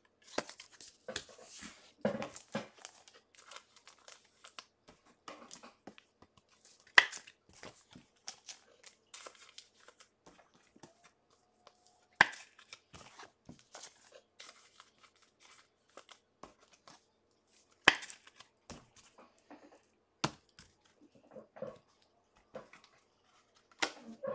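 Baseball card packs being handled and their wrappers torn open and crinkled: quiet rustling broken by several sharp clicks and taps.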